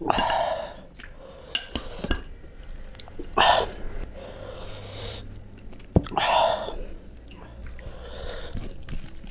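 Close-miked eating sounds: chewing and several short, loud wet mouth noises, with a few sharp clicks of a metal spoon knocking against a glass bowl of mutton curry.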